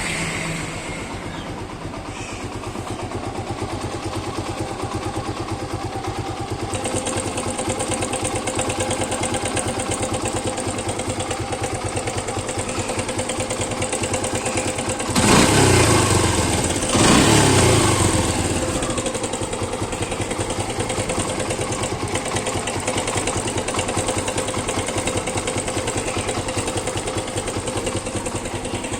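Suzuki Gixxer single-cylinder motorcycle engine running at idle, blipped up to higher revs twice a little past halfway. It makes a bad engine noise that the mechanic traces to a loose cam timing chain.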